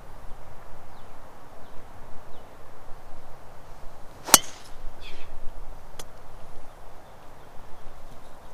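Golf driver striking a teed-up ball about four seconds in: one sharp, loud crack. A fainter click comes about two seconds later, over a steady low rush of wind on the microphone.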